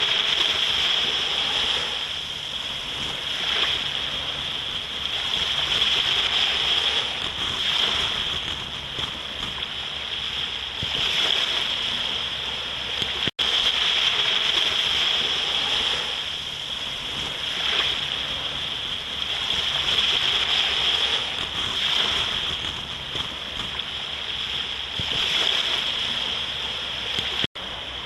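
Sea waves washing onto a beach, the surf swelling and falling every few seconds, over a steady high-pitched buzz. The sound cuts out for an instant twice.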